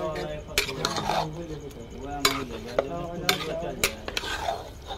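Flat metal spatula stirring thick matar paneer gravy in an aluminium pot, scraping and knocking against the pot's side and bottom several times.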